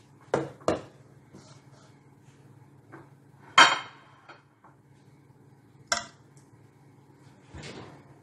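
Metal serving spoon clinking and knocking against a metal cooking pot and china plates as rice is scooped out and spread, several sharp knocks with the loudest, briefly ringing one about three and a half seconds in. A steady low hum runs underneath.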